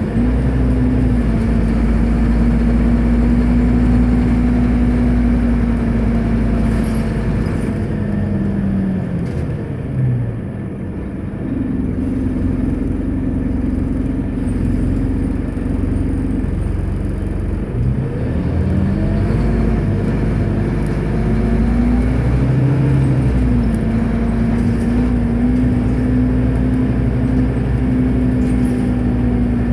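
Scania Omnicity city bus heard from inside the passenger cabin while driving: the engine's steady drone with road rumble, its pitch dropping twice as the bus slows and climbing again as it pulls away.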